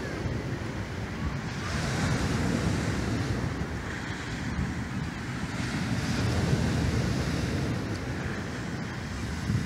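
Wind buffeting the microphone: a steady low rumble of noise that swells and eases every few seconds.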